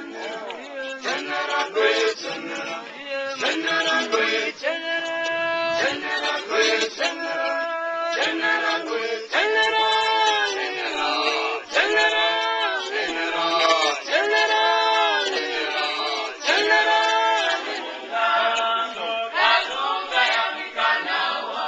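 An unaccompanied choir of men's and women's voices singing in harmony, in phrases separated by short breaths.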